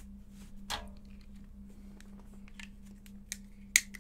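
Pokémon trading cards being handled and set down on a playmat: scattered light taps and slides, with a sharper click near the end, over a steady low hum.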